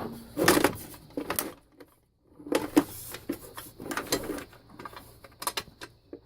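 Metal drill bits and small hand tools clinking and rattling as they are handled in a tool box, in irregular clusters of clicks with a short pause about two seconds in.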